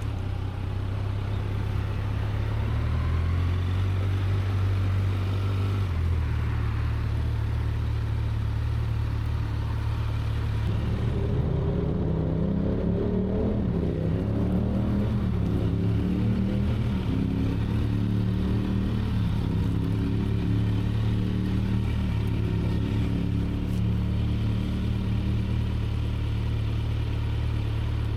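Kawasaki Z900 motorcycle's stock inline-four engine running over a steady low drone. From about ten seconds in, its pitch rises and falls again and again, as in accelerating through the gears.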